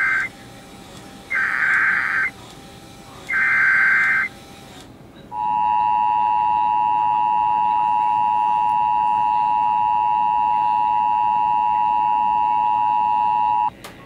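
Emergency Alert System signalling from a Sage Digital ENDEC relaying an alert: warbling digital header data bursts, about a second each and repeated at two-second spacing, then the steady two-tone EAS attention signal held for about eight seconds, cut off with a click near the end.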